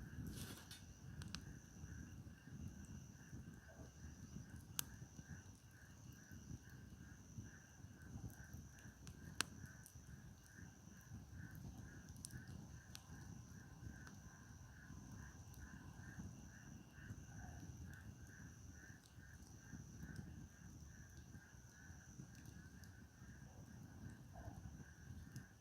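Faint firewood campfire burning with a low, even crackle and two sharp pops from the wood, about 5 and 9 seconds in. Behind it, insects trill steadily, one of them pulsing about twice a second.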